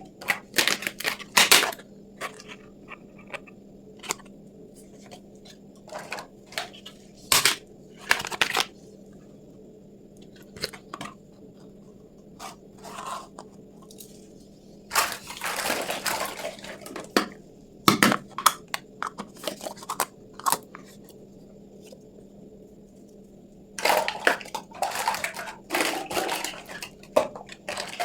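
Unboxing a mini toy kitchen set: packaging rustling and crinkling in a couple of longer stretches, between irregular sharp taps and clicks of small toy pieces being handled, over a faint steady hum.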